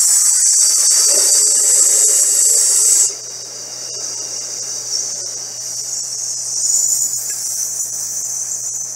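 A person breathing out through the teeth on a long sustained 'sss' hiss, as a singing breath-control exercise. The hiss is loud for about the first three seconds, then drops to a softer hiss that holds steady almost to the end.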